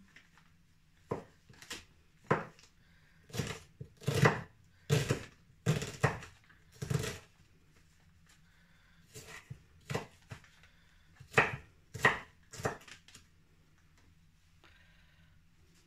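Kitchen knife chopping a red onion on a newspaper-covered counter: about fifteen irregular sharp knocks of the blade, which stop a few seconds before the end.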